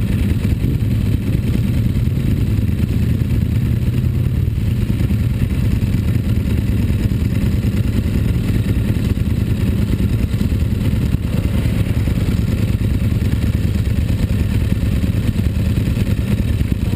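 A vehicle engine running steadily, its pace holding even with no revving up or down.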